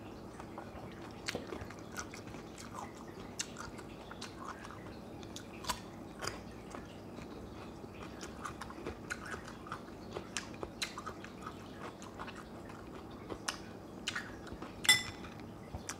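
Close, wet chewing with irregular crunchy bites into a crisp green vegetable stick, small sharp clicks every second or so, a louder crunch near the end.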